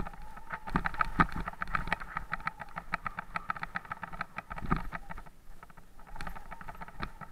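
Downhill mountain bike running fast over a rough dirt and stone trail: rattling, clattering and knocking from the bike and tyres over bumps, with a few heavier thumps, over a steady high buzz that drops out briefly about five seconds in.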